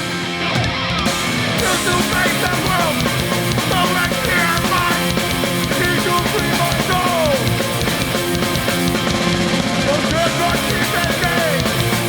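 Hardcore punk band playing live: distorted electric guitar, with the full band, drums and cymbals, coming in about a second and a half in and driving on steadily.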